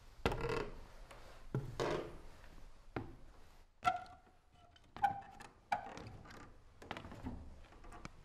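A run of irregular wooden thuds and knocks, about one a second, some followed by a short creak or ring.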